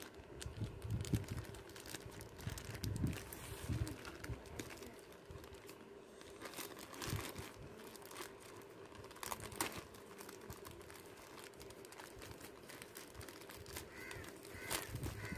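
Plastic courier mailer bag crinkling and rustling as it is handled and torn open by hand, with low thumps of handling in the first few seconds. Crows caw a few times near the end.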